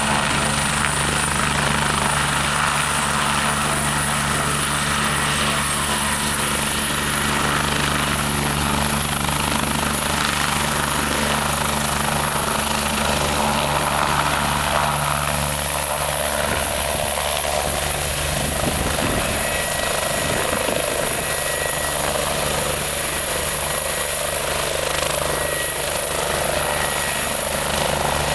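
Eurocopter EC 145 helicopter, its twin turbine engines and rotor running under power as it lifts off and hovers, with a steady high turbine whine over the rotor noise.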